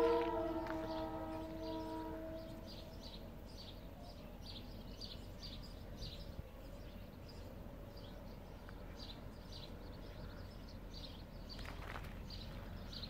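A distant locomotive horn sounding several tones at once, held briefly and dying away over the first two seconds or so, from a freight train approaching along the line. After it come faint high chirps repeating about twice a second over a low rumble.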